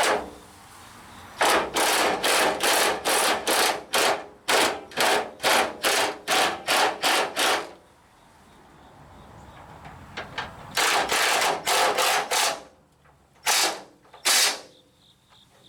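Ratchet wrench with a 13 mm socket run in quick strokes, each stroke a burst of clicking at about three a second, driving bolts into the core support; two long runs, then two last strokes near the end.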